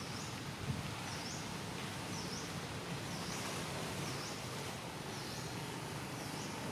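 A bird repeating a short high swooping note, dipping and rising again, about once a second, over steady outdoor background noise with a low hum.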